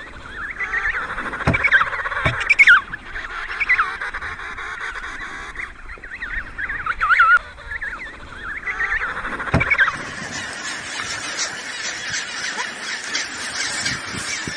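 Penguins calling: many overlapping honking, braying calls from a colony, thickening into a dense chorus about ten seconds in.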